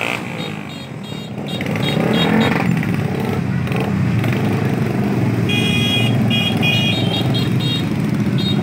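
A stream of motorcycles and automatic scooters passing one after another, their small engines running in a steady, continuous drone. Short high-pitched beeps sound several times over the engines.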